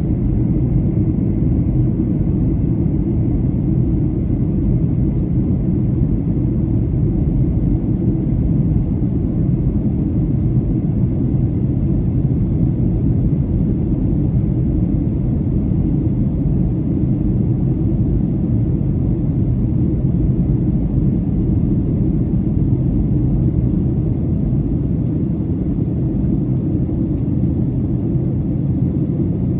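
Steady low rumble of a Boeing 737-800 in descent, heard inside the cabin: airflow and engine noise, unchanging throughout.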